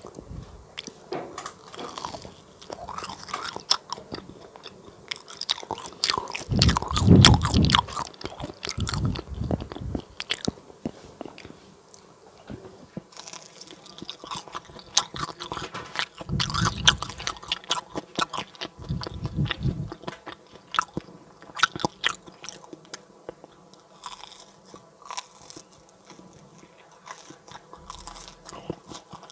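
Close-miked biting and chewing of crispy fried banana cake, with crunchy crackles throughout. Louder, heavier chewing comes about seven seconds in and again near seventeen seconds.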